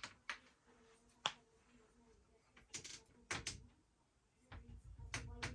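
Cabinet door being swung on hinges freshly treated with a WD-40-type anti-squeak spray: a faint, low hinge creak comes and goes, with a few clicks and knocks from the door. The squeak has been mostly silenced by the lubricant, with a little still left.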